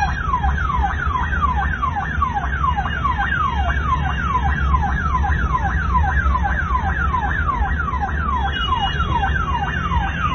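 Ambulance siren sounding a fast repeating falling wail, about three downward sweeps a second, heard from inside the ambulance's cab over the low rumble of its engine.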